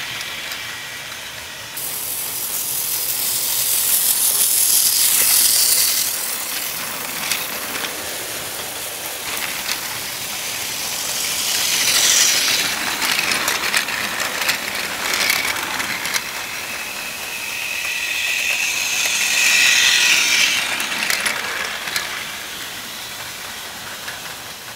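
Battery-powered Plarail toy N700-series Shinkansen running around a blue plastic track, its small motor and gears whirring and its wheels clicking over the track. The sound swells three times as the train passes close by.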